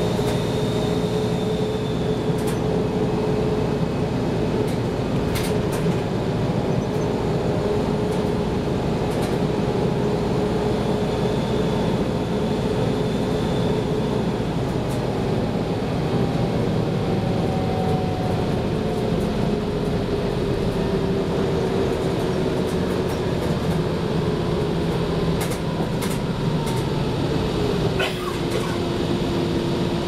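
Drivetrain of a 1994 TMC RTS bus, a Detroit Diesel Series 50 engine with an Allison VR-731 transmission, heard from inside the cabin while the bus drives. It runs steadily with a whine whose pitch slowly falls and then drops lower near the end, with a few sharp rattles.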